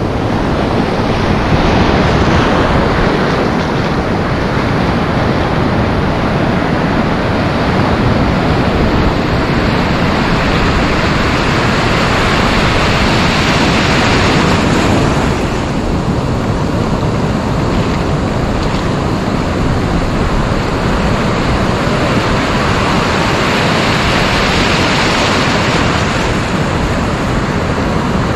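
Ocean surf washing in around the microphone, a loud continuous rush of foam and water that swells with each incoming wave.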